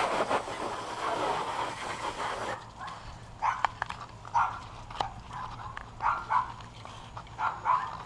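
A steady spraying hiss of water cuts off about two and a half seconds in, and then a dog barks about six times, some barks in quick pairs.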